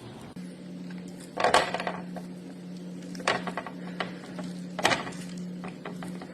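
Kitchen utensils clattering against pots and dishes, three separate clatters a second or two apart, over a steady low hum.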